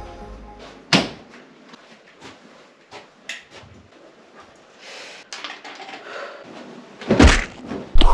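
Hotel room door opening as people come in, with a sharp knock about a second in, then light clicks and rustles of movement in a small room. A loud bump near the end.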